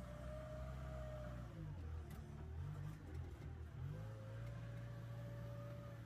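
JCB 3DX backhoe loader's diesel engine running, heard from inside the cab, with a thin steady whine above the engine note. About a second and a half in, the engine note wavers and the whine drops out, and both settle back to steady about four seconds in.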